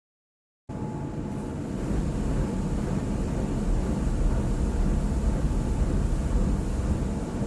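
Automatic car wash heard from inside the car's cabin: a steady, muffled rumble of the wash working over the body, with a faint steady whine on top. It starts suddenly less than a second in and swells slightly a second later.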